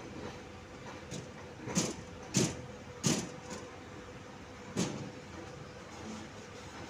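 A few loud knocks at uneven intervals, four of them strongest, over a faint steady hum.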